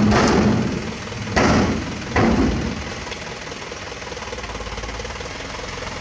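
Isuzu Elf dump truck's diesel engine running while its tipping body lowers, with three loud bangs in the first three seconds, then a steady engine sound.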